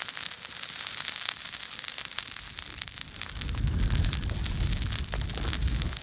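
Steady frying sizzle with dense fine crackling, from food cooking on a multi griddle over a campfire. A low rumble joins in about three seconds in.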